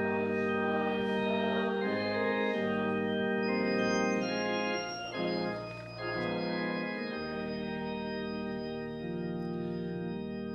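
Church organ playing the last phrases of a hymn in sustained chords that change every second or so, then settling on a long held final chord.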